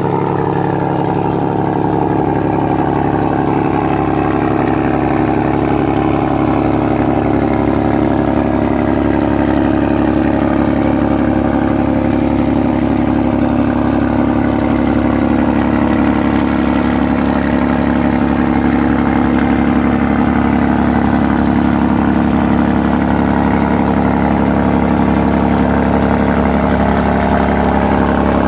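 Ferry's engine running with a steady, unchanging drone.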